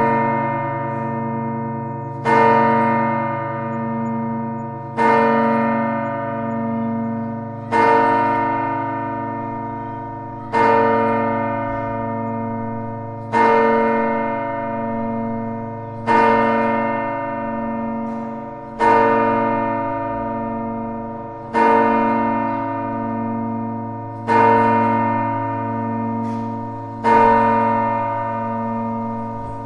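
A church bell tolled slowly, struck about every three seconds, ten strokes in all. Each stroke rings on with a long fading tone and a pulsing hum that carries into the next.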